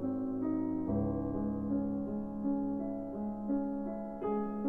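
Background piano music: a slow run of single notes and chords, with a new chord struck about a second in and again near the end.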